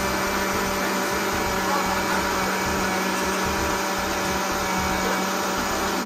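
Countertop blender running steadily at high speed, its motor holding one even hum while it churns a jug full of white liquid.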